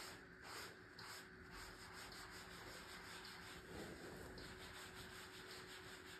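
A cellulose sponge rubbed in quick circular strokes over wet epoxy-grouted tile joints: faint, rhythmic rubbing as the sponge smooths and cleans the joints.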